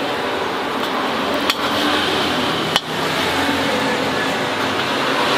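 Metal spatula scraping fried noodles out of a wok onto a plate, with two sharp metallic knocks, about a second and a half and nearly three seconds in, over a steady hiss.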